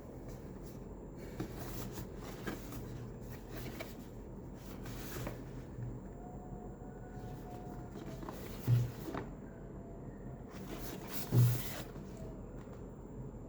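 Quiet room with scattered light clicks and knocks of handling, and two brief dull thumps, about nine seconds in and again two and a half seconds later.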